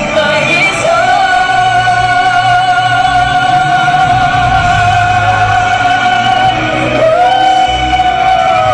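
Live singers with microphones singing a ballad over backing music, holding one long note for about six seconds before gliding to a new note near the end.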